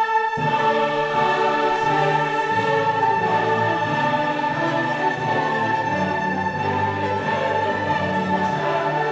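Orchestral background music, with a long held high note and lower parts coming in just after the start.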